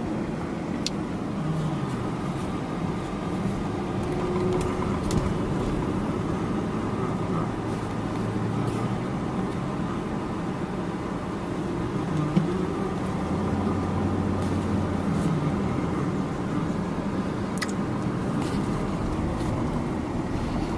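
Car running along the road, heard from inside the cabin: a steady engine and road hum whose pitch shifts now and then as the speed changes.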